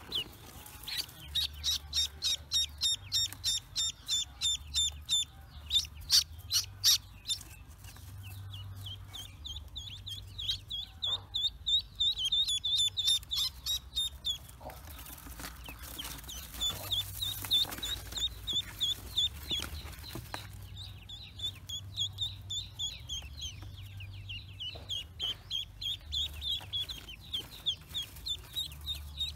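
Newly hatched ducklings peeping, a rapid run of short high peeps at about three or four a second that eases off for a moment about halfway through and then picks up again. A few brief rustles sound about six to seven seconds in.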